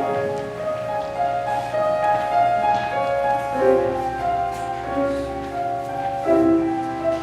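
Instrumental accompaniment playing a slow introduction of held chords under a melody, with no singing yet.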